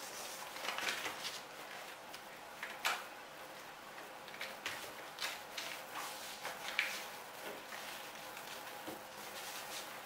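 A sheet of A4 paper rustling and crackling in short irregular bursts as it is folded and creased by hand, with sharper crackles about three seconds in and again near seven seconds.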